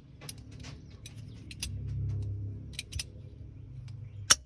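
Light metallic clicks and clinks of needle-nose vise grips being worked onto battery-cable ring terminals, with one sharp click near the end.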